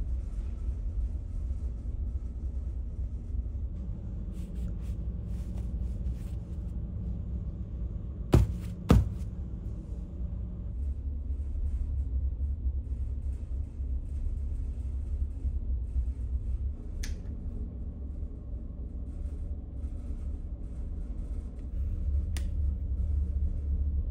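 Steady low rumble of the ferry's machinery and ventilation heard inside a small cabin, with two sharp clicks about eight and nine seconds in and two fainter clicks later.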